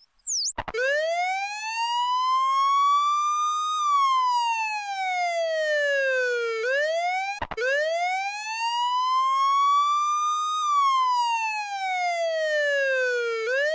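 Electronic police car siren on a slow wail, rising for about three seconds and falling for about three, twice over, with a brief break between the two cycles. A short quick sweep up and down comes at the very start.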